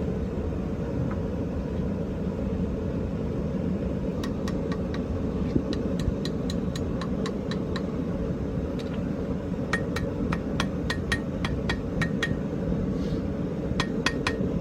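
Hand hammer striking hot iron bar stock over an anvil's horn, folding the ends down into fork tines. The blows come about three a second in runs with short pauses, begin about four seconds in, and from about ten seconds in they ring brightly. A steady low rushing noise continues underneath.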